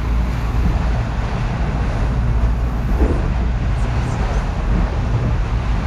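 Strong wind buffeting the microphone in a steady low rumble, over the rush of rough sea along a sailing catamaran's hulls.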